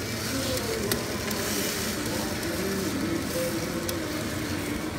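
Steady rushing noise at a gas stove as corn tortillas are warmed directly over the burner flame, with a few light clicks from the tortillas being handled and faint voices in the background.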